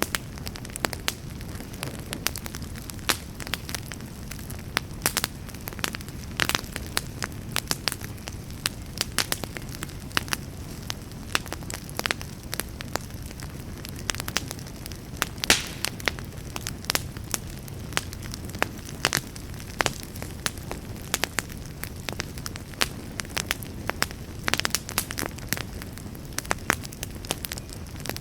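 Wood fire burning in a fireplace, crackling and popping in irregular sharp snaps over a steady low rumble of flame.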